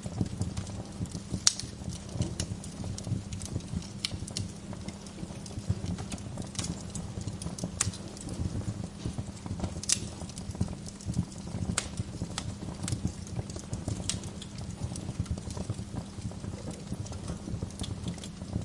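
Wood fire burning in a fireplace: a steady low rumble of the flames with irregular sharp crackles and pops from the logs, a few louder snaps among them.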